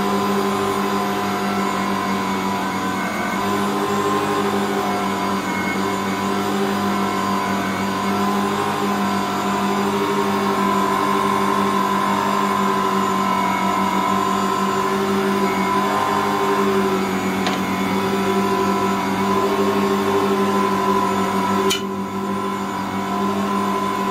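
Ankarsrum 6230 stand mixer running steadily while kneading bread dough: its motor turns the bowl against the roller with a steady hum and a few held tones. A short click and a brief dip in the sound come about 22 seconds in.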